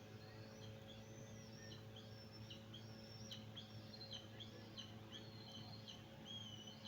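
Faint birdsong: short high chirps and whistled notes repeating several times a second, over a low steady hum.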